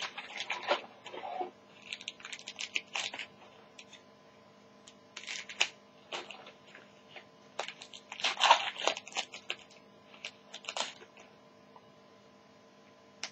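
Trading-card pack wrapper being torn open and crinkled by hand, in irregular bursts of crackling that stop for the last couple of seconds.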